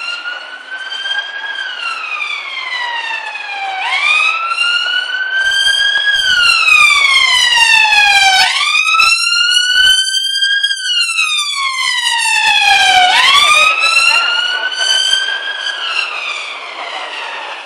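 Emergency vehicle siren wailing, its pitch sweeping up and down about every four and a half seconds. It grows louder toward the middle and fades near the end, with a low engine rumble while it is loudest.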